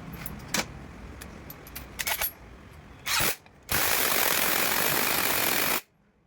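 Light metallic clinks of parts and tools during clutch work. About three seconds in comes a short hiss, then a loud steady hiss of about two seconds that cuts off suddenly.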